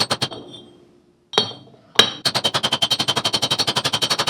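Rapid metal-on-metal strikes on a Land Rover axle part, each with a short metallic ring: a few at the start, two single blows a little later, then an even run of about ten strikes a second from about halfway in, as a tight-fitting part is worked into place.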